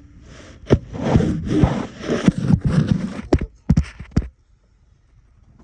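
Scraping and rustling with a run of sharp clicks and knocks, then quiet for the last second or so.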